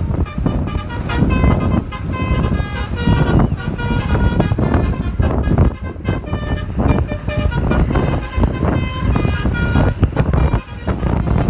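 Bus telolet basuri multi-tone air horn playing a tune: a run of short held horn notes that jump between pitches a few times a second, over a low rumble.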